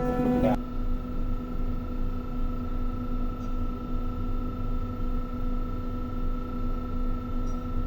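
Heavy machinery running steadily: a low rumble with a constant hum and whine held at one pitch. A louder, busier sound cuts off about half a second in, leaving the steady machine hum.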